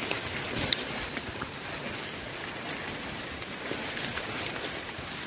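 Steady rain falling, an even hiss with a few faint scattered ticks of drops.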